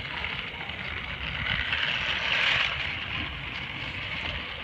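Battery-powered TrackMaster Winged Thomas toy engine running along plastic track pulling two coaches: a steady motor whir with wheel rattle that swells about halfway through, then fades as the train moves away.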